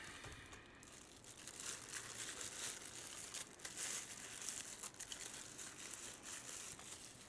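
Thin plastic wrapping crinkling and rustling as it is pulled off a small camera by hand, with many small crackles.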